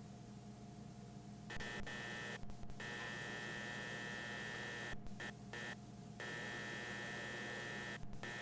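Steady low electrical hum, joined about a second and a half in by a harsh buzzing static that cuts out and back in abruptly several times: a surveillance camera's microphone failing.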